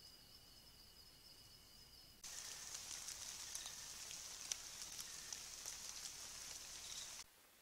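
Forest ambience: two steady, high insect trills, then about two seconds in a sudden switch to a louder, dense high hiss with scattered ticks, which cuts off shortly before the end.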